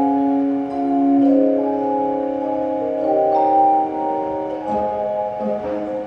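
Handbell choir ringing a slow melody over overlapping sustained chords, each note ringing on and blending with the next.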